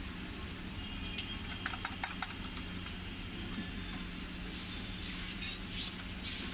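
Food on a hot flat iron tawa griddle sizzling, with a few sharp clicks of a steel spoon about two seconds in, then hissy scraping near the end as a runny mixture is poured onto a roti and spread with the spoon. A steady low hum runs underneath.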